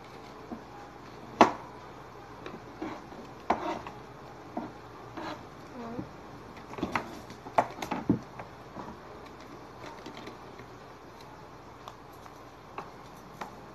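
Small plastic packet being crinkled and torn open by hand: irregular crackles and snaps. The loudest snap comes about a second and a half in, with a cluster of them around seven to eight seconds.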